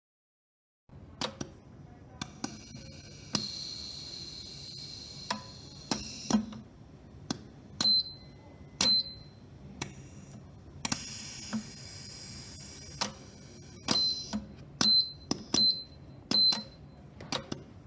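A pneumatic transfer machine cycling: its cylinders and clamps move into place with a long series of sharp metallic clacks, several followed by a brief high ring. Air hiss, from the valves exhausting, comes in twice: once about three seconds in, lasting a few seconds, and again briefly near the middle.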